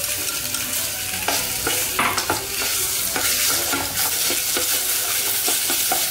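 Minced pork sizzling in hot oil with fried shallots in a stainless steel pot, stir-fried until the meat firms up. Chopsticks stirring it knock and scrape against the pot's sides in irregular clicks over the steady sizzle.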